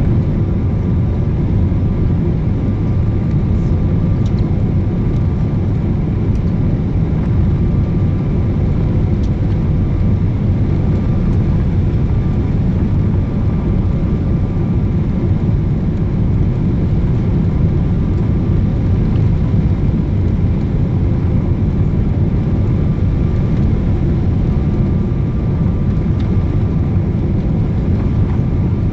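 Steady cabin noise inside a Boeing 777-300ER on its landing approach: the low, even rumble of its GE90-115B engines and airflow over the fuselage. A faint steady whine sits above it, fading out about two-thirds of the way through and returning near the end.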